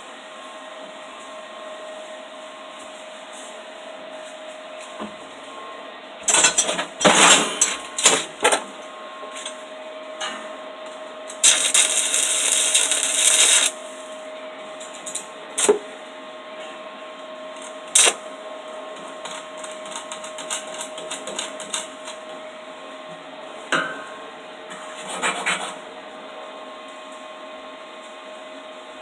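Stick-welding arc with a 3/32" 7018 rod crackling and sizzling steadily as a bead is run. Louder sputtering bursts come in the first third, a harsher stretch of about two seconds sits in the middle, and a few sharp cracks follow.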